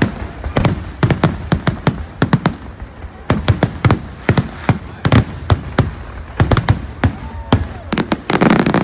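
Aerial fireworks bursting in a rapid, irregular string of sharp bangs, several a second. About eight seconds in, a dense, louder volley of bangs sets in.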